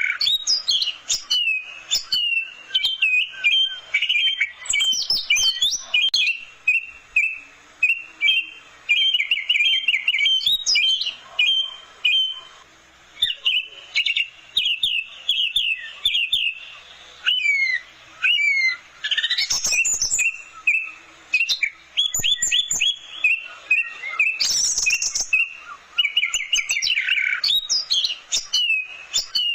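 Orange-headed thrush singing continuously in fast, varied phrases of quick chirps, whistled slurs and trills, separated only by brief pauses.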